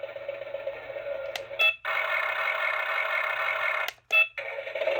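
Toy RC excavator's built-in electronic sound effects and music playing through its small speaker. The sound stops briefly twice, about one and a half seconds in and near four seconds in, each break marked by a short beep.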